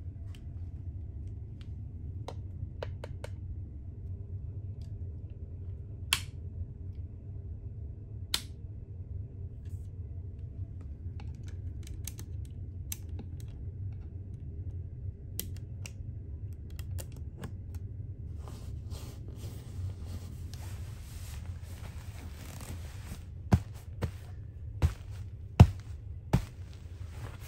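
A steady low hum in the ferry cabin, with occasional small clicks of handling. In the second half, bed linen and a pillow rustle as a hand pats and smooths them, with a few sharp clicks and taps near the end.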